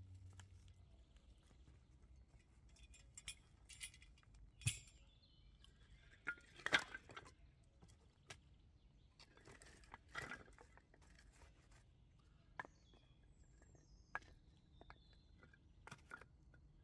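Split firewood being handled and set down on dry leaf litter: scattered wooden knocks and clacks with leaf crunching, the loudest cluster about seven seconds in.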